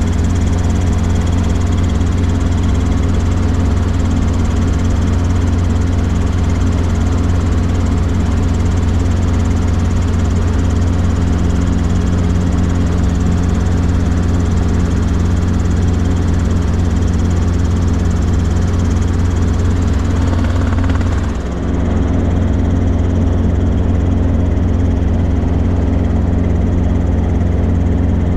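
Robinson R22 Beta II helicopter in flight, its four-cylinder Lycoming piston engine and rotor making a steady low drone, with a brief dip in loudness about three-quarters of the way through.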